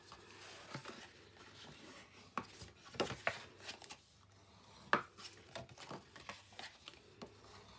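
Cardstock being folded along its score lines and burnished with a bone folder: soft rubbing and paper handling with a few sharp taps, the loudest about five seconds in.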